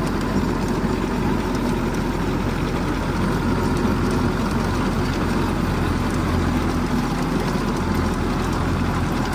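Belarus tractor's diesel engine running steadily under load while pulling a potato digger through the soil.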